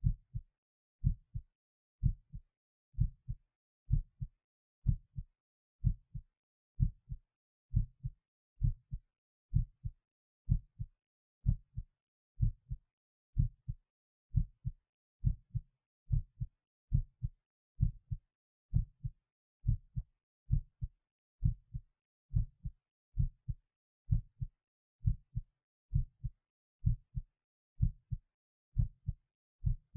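A person's heartbeat: steady lub-dub pairs of low thumps, about one beat a second.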